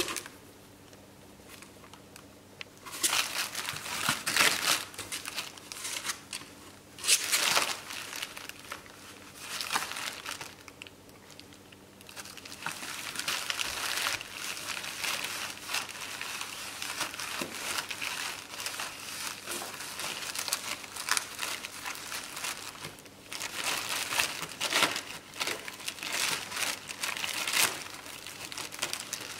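Plastic bubble wrap crinkling and rustling in irregular bursts as a ferret burrows and scrambles through it inside a cardboard box, starting about three seconds in.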